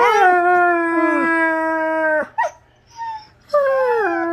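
Wolfdog howling: a long drawn-out call that dips in pitch and then holds steady for about two seconds before cutting off. After a brief pause a second howl falls in pitch and holds.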